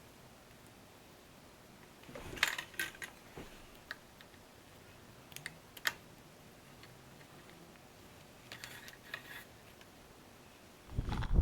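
Faint scattered clicks and light clatter in three short clusters, like small hard objects being handled. Just before the end a much louder low rushing noise starts.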